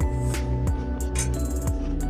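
Background music: sustained tones over a steady bass, with light percussive ticks.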